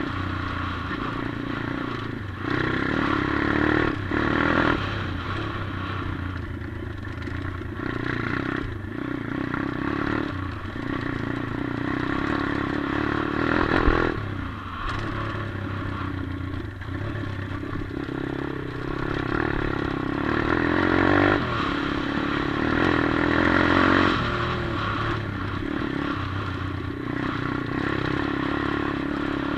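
140cc Atomic pit bike's single-cylinder four-stroke engine, heard close from the handlebar camera, revving up and easing off in repeated pulls as the bike is ridden over dirt, with short dips each time the throttle closes. A sharp knock about halfway through.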